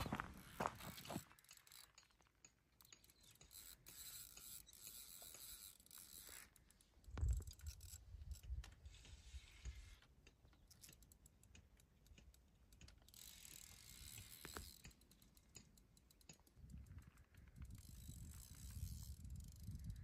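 Faint, quick mechanical clicking of a fishing reel's mechanism, with a low thump about seven seconds in.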